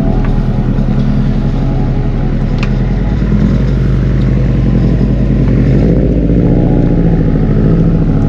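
Subaru WRX's flat-four engine running steadily, its pitch shifting slightly about six seconds in.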